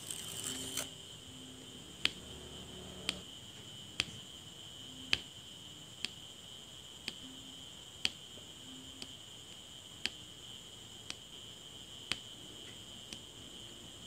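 Diamond painting pen tapping round resin drills onto the sticky canvas: a sharp click about once a second as each drill is pressed into place, with a short rustle at the very start. A steady high-pitched whine runs underneath.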